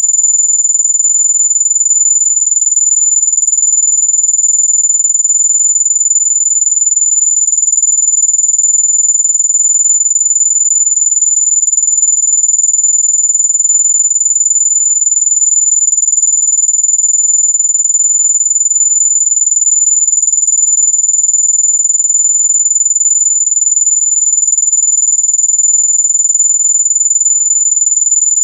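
Steady, high-pitched electronic tone at one unchanging pitch, with no breaks: a mosquito-repellent tone.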